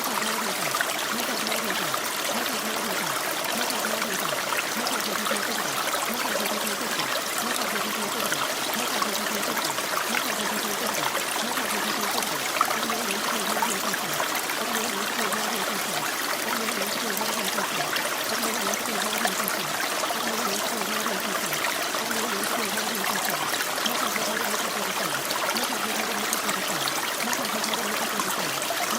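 Steady rain: an even hiss of falling water, full of tiny droplet ticks, with no change in level.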